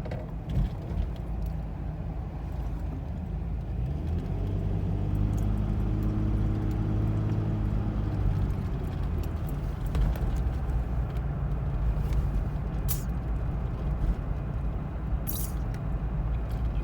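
Nissan VG33E 3.3-litre V6 idling roughly, a rough idle put down to a knock sensor code. About four seconds in a steadier droning tone swells in, holds, then fades by about nine seconds, and a couple of sharp ticks come near the end.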